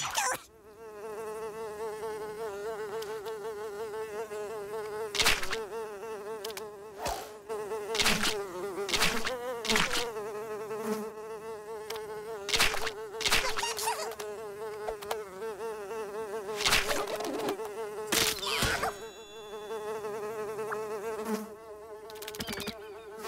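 A fly buzzing steadily, its hum wavering slightly in pitch, broken by repeated short, sharp clicks and knocks.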